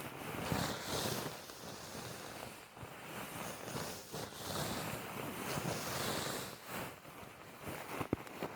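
Wind blowing in gusts, the noise swelling and easing every second or two, with a short sharp click near the end.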